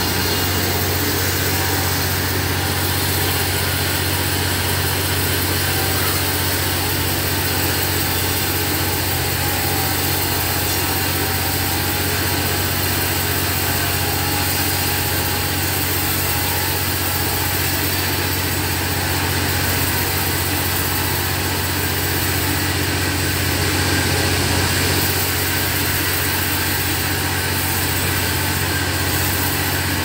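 Homemade bandsaw sawmill running steadily, its motor giving a constant loud drone.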